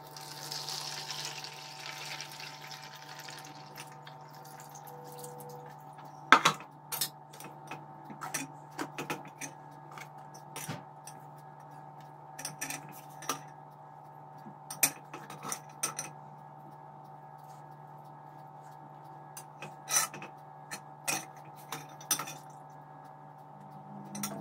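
Boiled pine-shoot liquid running through a cloth-lined colander into a basin for the first few seconds, then scattered clinks and knocks of metal kitchenware, the loudest about six seconds in. A steady low hum sits underneath throughout.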